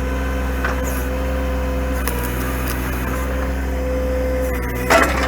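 Diesel engine of a John Deere compact tractor with a backhoe, running steadily under the work. A single loud, sharp knock comes near the end.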